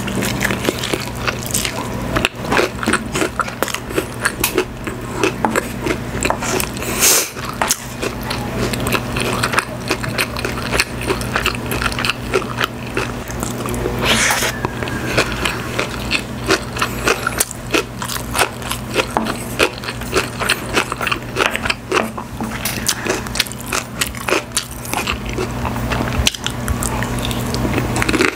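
Close-miked biting and chewing of Korean fried chicken and kimchi rice: a dense, irregular run of crunches and wet mouth clicks, over a steady low hum.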